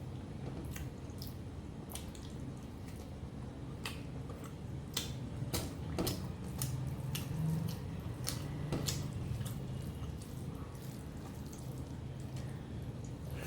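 Close-miked wet eating sounds: irregular mouth clicks and smacks of chewing a mouthful of rice and mutton curry, over a steady low hum.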